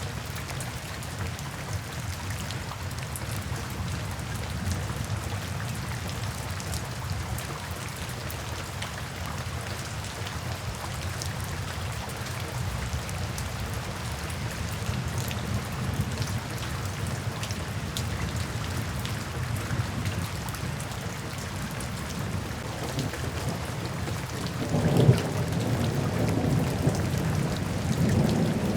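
Steady light rain falling into puddles and standing water, with separate drop splashes heard through the hiss. Near the end a roll of thunder rumbles in and becomes the loudest sound.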